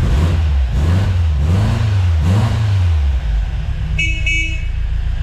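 A car engine running with a low note that rises and falls, then two short car-horn toots near the end.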